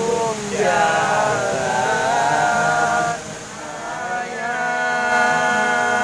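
Male voices singing in long held notes, with an acoustic guitar; there is a short break about three seconds in, then another long held note.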